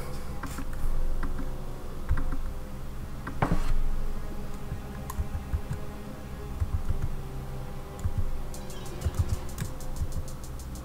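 Typing on a computer keyboard: scattered key clicks, then a fast, even run of clicks near the end, over faint steady background tones.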